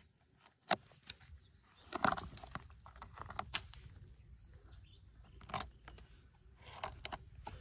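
Metal tweezers scraping and prying into soft, rotten wood of a fallen log, giving scattered sharp clicks and scrapes. The loudest is a click about a second in, followed by a cluster about two seconds in.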